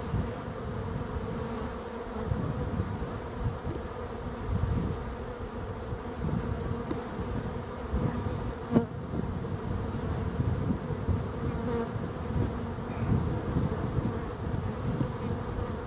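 Honeybees buzzing in a steady hum over an open hive as its wooden frames are worked apart. About nine seconds in there is a single sharp knock.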